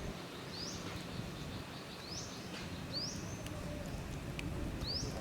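A bird calling: four short, high chirps that sweep upward in pitch, spaced about a second apart, over a steady low background hum of outdoor noise.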